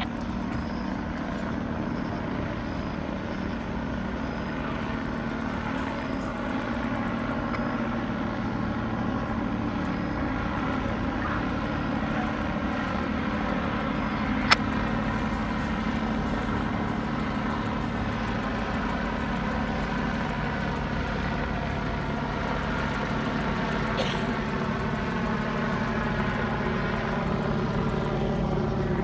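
Medical evacuation helicopter flying overhead: a steady drone of turbine and rotors whose pitch slowly shifts as it moves. A single sharp click comes about halfway through.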